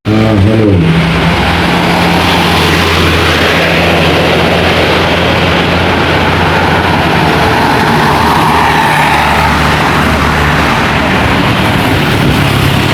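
A bus's diesel engine running close by over tyre and road noise, with no horn. The engine rises in pitch in the first second, then holds a steady drone.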